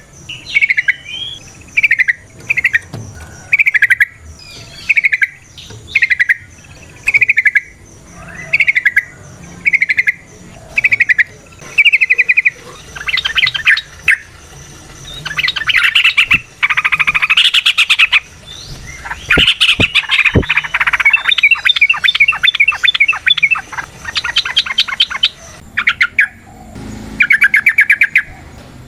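Yellow-vented bulbul (trucukan) singing: short bubbly phrases about once a second, then long, fast rattling runs of song from about halfway through.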